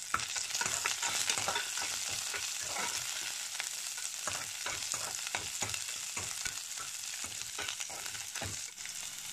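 Shallots, green chillies and spices sizzling in hot oil in the metal base of a pressure cooker. A spatula stirs and scrapes against the pan in many quick strokes over the steady frying hiss.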